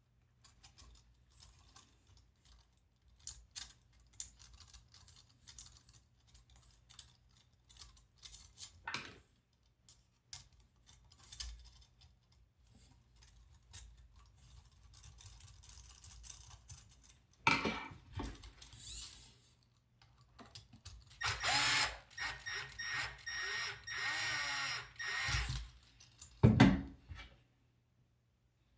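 Light scattered clicks of small parts being handled, then a small motor whirs for about four seconds, with a knock before and after it.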